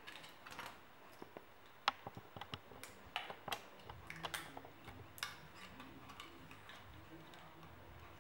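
Light, irregular clicks and ticks of a craft knife and fingers working at die-cut cardstock, picking at the cut pieces. There is one sharp click about two seconds in, and most of the clicks fall between two and five seconds.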